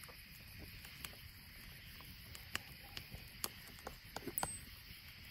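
Campfire crackling: scattered sharp pops at irregular intervals, a small cluster of them about four seconds in, over a low steady rumble.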